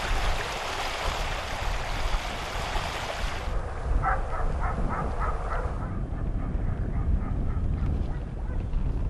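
Flowing river water with wind rumbling on the microphone. From about four seconds in come short, repeated duck quacks, roughly three a second, growing sparser toward the end.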